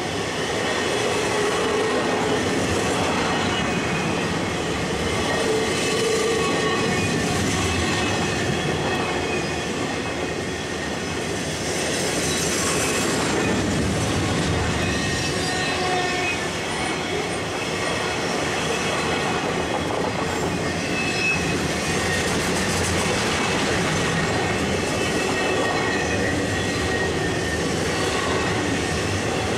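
Freight cars of a Norfolk Southern intermodal train rolling steadily past: continuous steel-wheel-on-rail noise, with thin high wheel squeals now and then.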